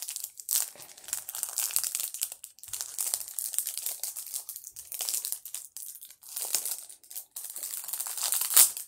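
Chocolate bar wrapper crinkling and crackling as it is handled and opened by hand, in uneven bursts, with the loudest crackle near the end.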